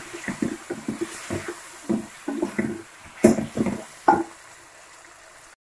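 A wooden spoon stirring and scraping potato and onion slices in a metal karahi, with repeated knocks against the pan and a faint sizzle. The stirring stops about four seconds in. The sound cuts out to silence near the end.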